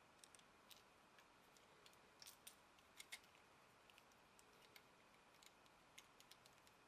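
Near silence broken by faint, irregular small clicks, with a cluster of louder ones around two to three seconds in.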